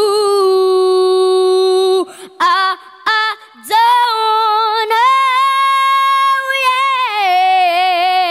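A young girl singing a cappella into a microphone, a wordless melismatic phrase with no accompaniment. She holds a long note, sings a few short notes, climbs to a higher sustained note, then falls away with vibrato near the end.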